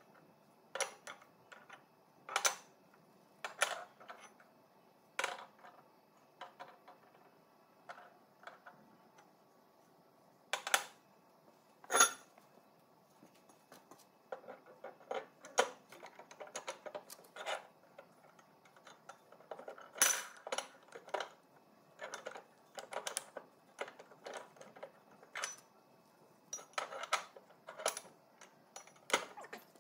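Plasma-cut steel plates and braces clinking and knocking against each other and a steel workbench as they are stood up and fitted together by hand. Irregular sharp clanks with pauses between, the loudest about a third of the way in and again two-thirds in.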